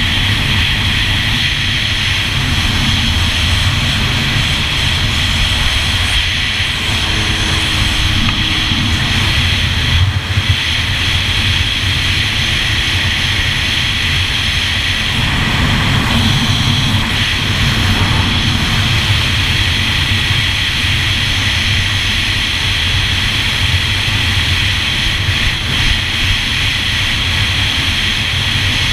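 2001 Yamaha GP1200R personal watercraft's two-stroke three-cylinder engine running steadily as the jet ski moves across the water.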